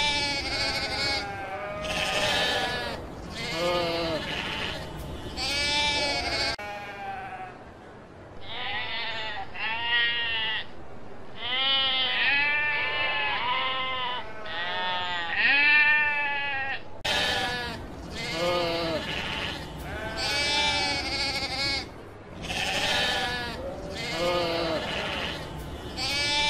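Sheep bleating, many quavering calls one after another with hardly a pause. From about six and a half seconds in to about seventeen seconds the bleats sound duller, with the highs cut off, before the fuller bleating returns.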